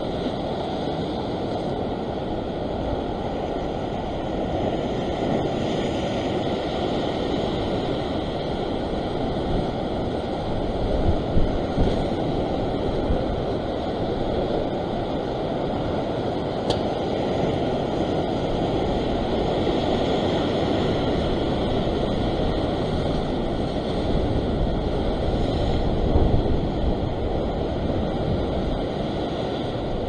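Ocean surf surging and washing over a rocky shore ledge: a steady rush of breaking swell, swelling louder a few times, with wind on the microphone.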